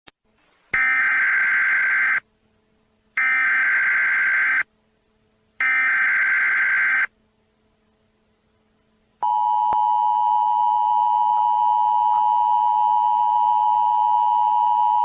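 Emergency Alert System signal: three short bursts of SAME header data, each about a second and a half long with gaps between them. About nine seconds in, the steady two-tone EAS attention signal begins.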